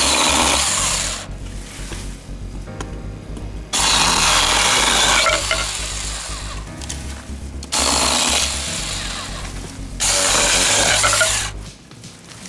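Goldsea 21 V cordless mini chainsaw cutting through a bamboo pole in four short bursts of one to two seconds each, the chain running through the cane. Background music underneath.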